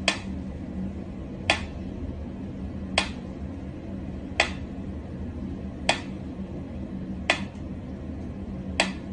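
Sharp clicks at an even pace, about one every second and a half, over a steady low hum.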